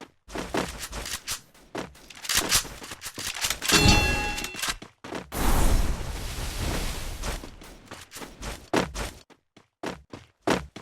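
Gunfire sound effects from a shooter video game: bursts of shots and sharp impacts, with a ringing metallic ding about four seconds in and sparser clicks near the end.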